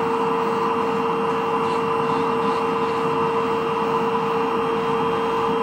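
Podiatry drill with hose suction running steadily while its sanding cap buffs hard skin off a heel: a constant whine over an even suction hiss.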